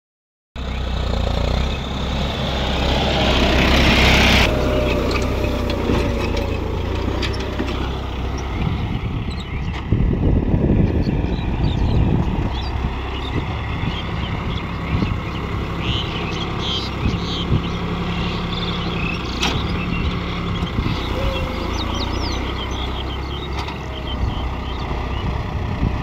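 John Deere diesel tractor engine running steadily under load while pulling a tine cultivator through dry field soil, loudest in the first few seconds as it passes close.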